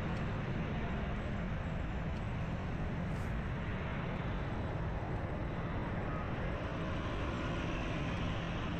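Steady road and traffic noise from moving through a busy city street full of motorbikes, with a heavy low rumble and no sudden events.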